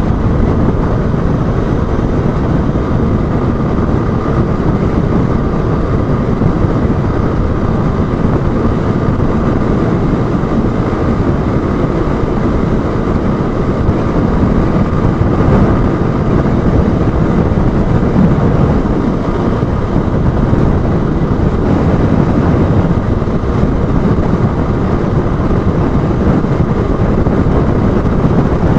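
Steady wind rush and road noise over a motorcycle-mounted action camera while a Honda Bros 160 cruises at about 80–90 km/h. Its single-cylinder engine holds an even note underneath, with no change in speed.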